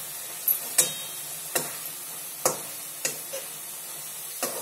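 A long metal spatula knocking and scraping against a metal kadhai as cooked greens are stirred: about six sharp, irregular knocks over a faint sizzle of the last water cooking off.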